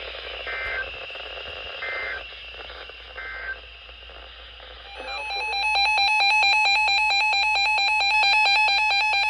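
Faint radio hiss with three short electronic beeps about a second and a half apart. Then, about five seconds in, a loud electronic alarm starts beeping rapidly, about six pulses a second, and keeps going.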